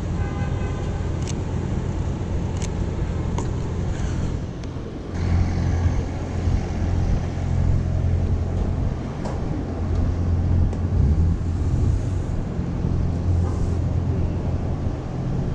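City street traffic: a steady low rumble of vehicles that gets heavier about five seconds in, with a few sharp clicks in the first few seconds.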